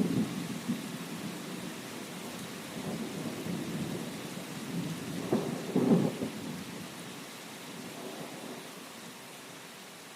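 Steady rain with light thunder rumbling, one roll at the start and a louder one about five to six seconds in. The rumble then dies away under the rain.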